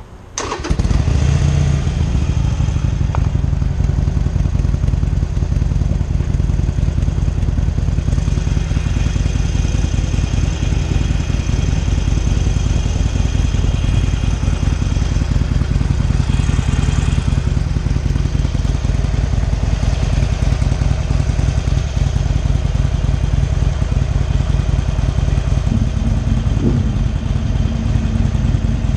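Harley-Davidson Iron 883's air-cooled V-twin engine starting up about half a second in, then running at a steady idle.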